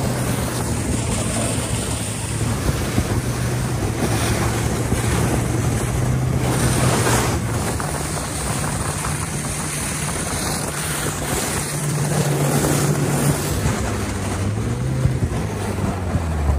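Snowmobile engine running steadily while towing a loaded sled, under heavy wind rush on the microphone; near the end the engine note drops as it slows down.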